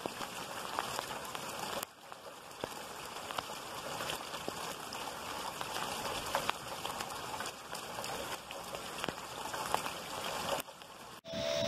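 Heavy rain and storm runoff rushing and splashing over pavement, a dense hiss full of tiny drop ticks, with brief dips about two seconds in and just before the end. Near the end it cuts to metal tube wind chimes ringing.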